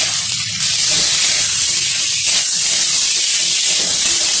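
Diced potatoes, green beans and tomato sizzling in hot mustard oil in an aluminium kadai as they are stirred with a metal spatula. The sizzle grows louder about half a second in and then holds steady.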